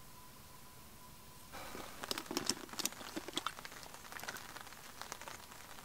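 Raindrops hitting a tarp overhead: many irregular sharp taps that begin suddenly about a second and a half in, after a faint steady tone.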